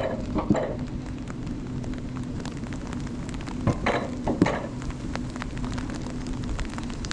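Summer toboggan sled running along its steel track: a steady rolling rumble with a constant hum from the wheels, broken by a few short, louder clatters about half a second in and again a little past halfway.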